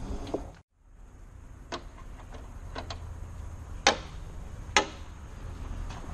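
Scattered sharp clicks and taps of a screwdriver and parts against a car door module's plastic carrier panel, the two loudest about a second apart near the middle, over a low steady rumble.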